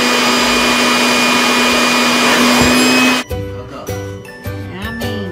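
Corded electric leaf blower running with a steady whine and rush of air, which cuts off abruptly about three seconds in. Background music with a steady beat follows.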